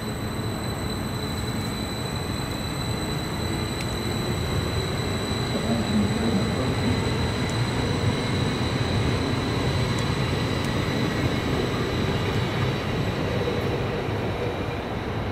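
A train rolling past: a steady rumble of wheels on rails that swells a few seconds in, with a thin, steady high tone over it.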